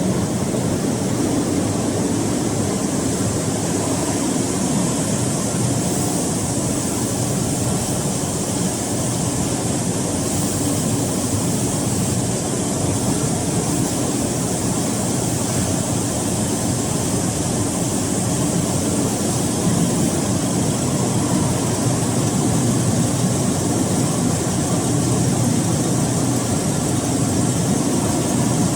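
Hydraulic cotton baler running steadily: a continuous low machine hum under an even rushing noise.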